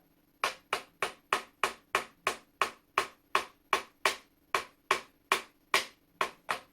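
Light, steady hammer taps, about eighteen strikes at roughly three a second, on a seized part of a rusty flintlock shotgun's lock to work it loose.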